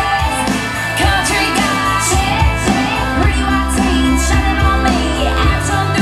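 A pop song with a singer, bass and a steady drum beat playing through a PA loudspeaker.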